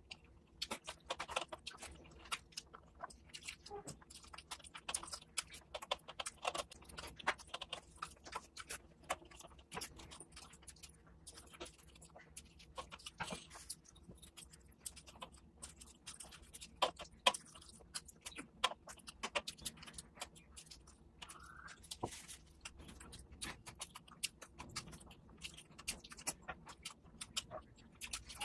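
Close-miked eating sounds: wet chewing and lip smacking over oily mutton fat curry and luchi, as a stream of many small irregular clicks several times a second.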